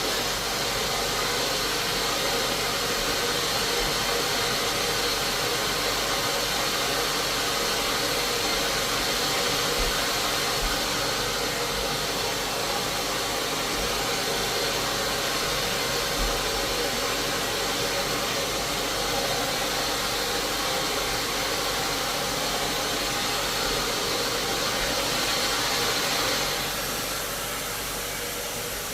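Floor-cleaning machine running with a steady hiss and a high whine. About 26 seconds in, the high part drops away and a quieter steady run continues.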